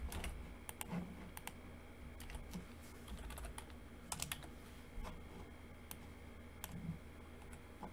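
Faint computer keyboard key presses and clicks, scattered and irregular rather than a run of typing.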